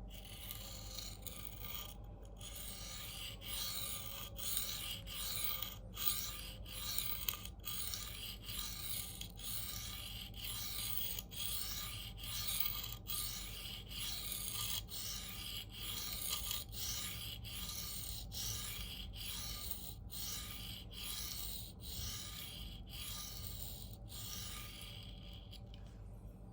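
Steel knife blade (CPM 4V) stroked back and forth on a coarse diamond sharpening plate, a dry rasping hiss in a steady run of quick repeated strokes, raising and evening a burr along the edge.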